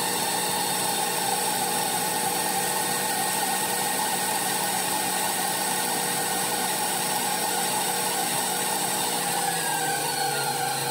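Bowl-lift stand mixer running steadily at high speed, its wire whisk beating egg whites and sugar into meringue in a stainless steel bowl.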